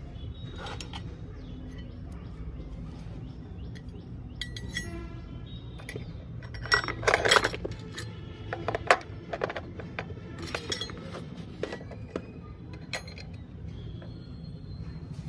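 Miniature steel toy pots and pans clinking and clattering against a plastic toy stove as they are handled and set down. The knocks are scattered, with a loud cluster about seven seconds in, over a steady low rumble.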